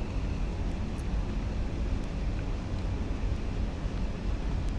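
Steady low rumble and hiss of central air blowing from a vent, with a couple of faint ticks.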